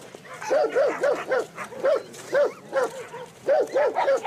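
Dogs barking repeatedly, about a dozen short barks in quick, uneven clusters.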